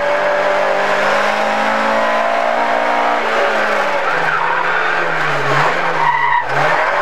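Rally car engine heard from inside the cabin, running hard at high revs for about three seconds, then falling in pitch as the driver comes off the throttle and wavering lower through a bend, with a brief break near the end as it is shifted. Loud tyre and road noise runs underneath.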